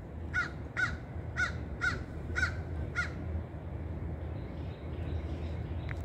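American crows cawing: six caws about half a second apart, stopping about three seconds in.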